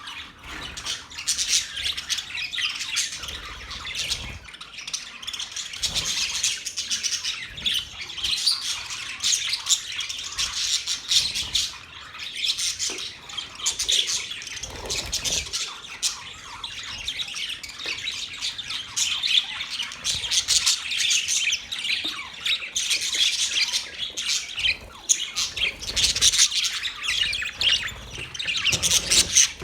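A group of budgerigars chattering, warbling and squawking, many short calls overlapping without a pause.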